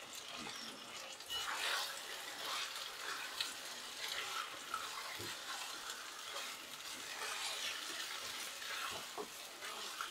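Black spatula stirring halved boiled eggs and boiled potatoes through thick masala frying in a stainless steel pan: a faint sizzle with irregular scrapes and soft knocks of the spatula against the pan.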